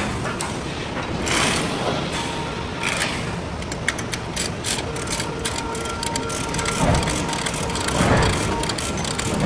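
Shipyard work noise: a steady rushing din with a few faint steady tones, and rapid, irregular clicks and ticks from about a third of the way in.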